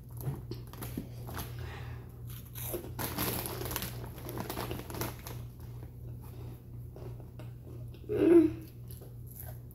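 Crunching and chewing of a spicy red chip, with the chip bag crinkling. About eight seconds in, a brief loud vocal sound from the eater.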